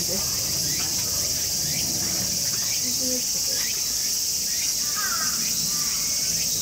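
Insects singing in a steady, unbroken high-pitched drone.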